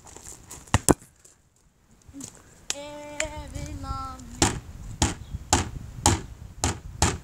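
A wooden stick striking a plastic wheelie bin: two sharp knocks about a second in, then six evenly spaced knocks about half a second apart in the second half.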